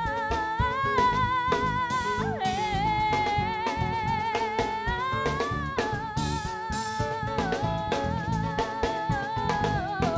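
A live band plays an instrumental passage: guitar and drum kit keep a steady rhythm under a held, wavering melody line.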